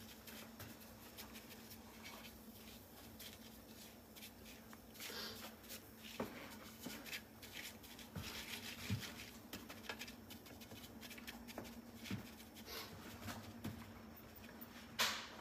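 Faint, intermittent dabbing and scraping of a wooden-handled brush in a shallow layer of liquid in a frying pan, with small clicks and a louder scrape near the end, over a steady low hum.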